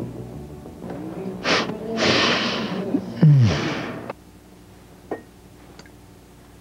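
A man breathing loudly, a few sharp breathy sniffs and exhales, one carrying a short voiced sigh that falls in pitch. Background music fades out at the start.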